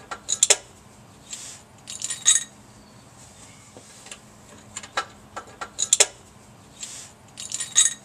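Wrench clicking and clinking against steel under the car in short bursts of a few sharp clicks, every couple of seconds, as a rusty nut on the exhaust and heat-shield fittings is worked back and forth.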